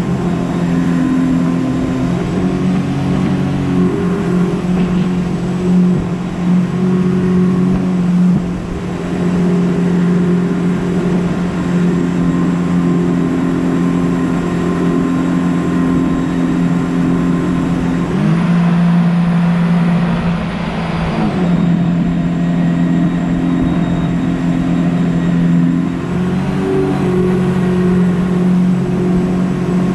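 Jet boat's outboard engine running steadily while under way. The engine note rises about eighteen seconds in and settles back down a few seconds later.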